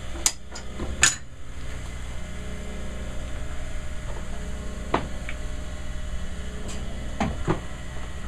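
Scattered sharp metallic clicks and taps as a steel skate runner and sharpening tools are handled and set down, with a cluster in the first second and a few more later. A steady low hum from the sharpening machine runs underneath.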